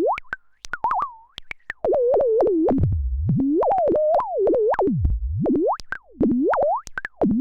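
Bastl Instruments SoftPop, a semi-modular analog synthesizer with two analog oscillators, playing a single warbling tone that swoops up and down in pitch. The tone drops to a deep low pitch twice, about three and five seconds in, and is studded with sharp clicks.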